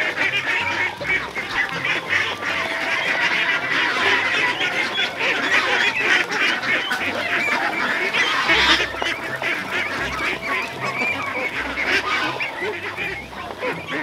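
A large flock of Itik Pinas breeder ducks quacking and chattering, with many calls overlapping at once without a break.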